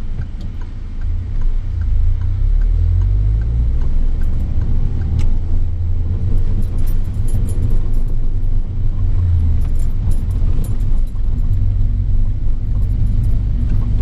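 Steady low engine and road rumble of a car being driven, heard from inside the cabin. It grows a little louder about two seconds in.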